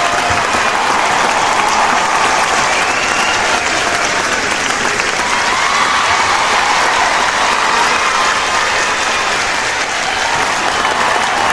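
Large crowd applauding steadily, with cheering voices mixed into the clapping.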